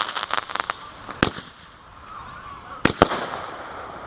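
Consumer fireworks going off: a quick run of crackling pops at the start, a single loud bang just after a second in, then two bangs in quick succession near three seconds.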